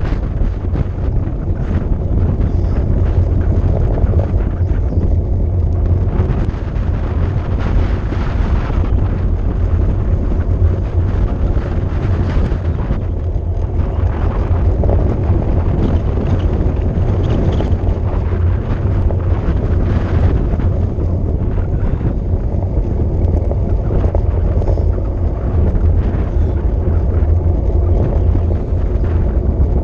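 Wind buffeting the microphone during a fast downhill bicycle ride: a loud, steady low rumble that swells in gusts every few seconds.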